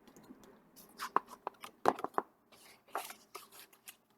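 Paper-and-cardboard handling of a picture book being opened to its first page: an irregular run of short rustles and taps, starting about a second in.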